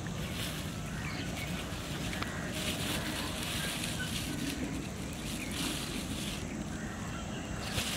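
Thin plastic bag crinkling in a few short bursts as it is handled, over a steady low rumble of wind on the microphone.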